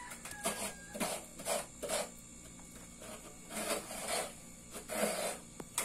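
Coconut half being scraped by hand, giving rasping strokes at an uneven pace of roughly two a second, with a pause in the middle.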